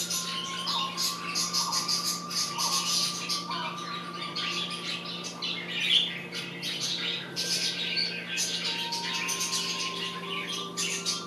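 Small birds chattering, with rapid chirps and squawks running on without a break, over a steady low hum.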